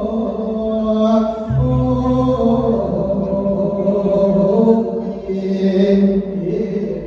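Thai sung sermon (thet lae): a male voice draws out long, held, melismatic notes that glide from pitch to pitch.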